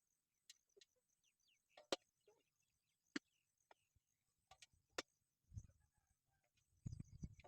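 Near silence broken by a handful of faint, sharp clicks at irregular intervals. A low rumble starts near the end.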